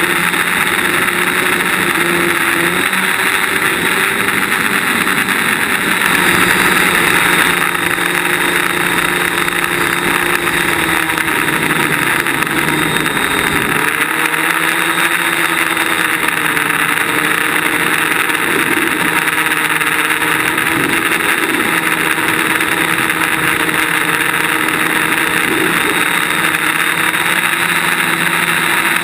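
DJI Flame Wheel quadcopter's electric motors and propellers buzzing steadily, picked up by the camera on the craft itself; the pitch dips and rises about halfway through and wavers again later as the throttle changes.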